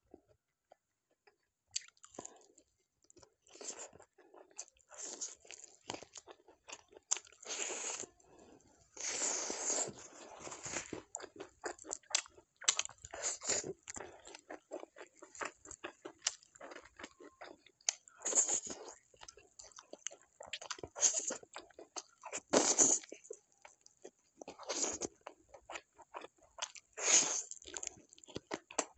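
Close-miked eating: a person biting and chewing food, with irregular crunches and small mouth clicks, a few bites louder and longer than the rest.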